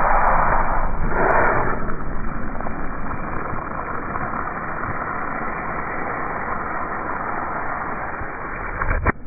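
Ford Raptor pickup's tyre crushing a plastic ketchup bottle, the ketchup squirting out with a rushing hiss: two louder surges in the first two seconds, then a steady rush. A sharp click comes near the end.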